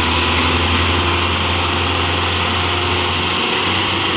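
Belarus tractor diesel engines running hard together, pulling a heavy load: a loud, steady, unbroken engine drone.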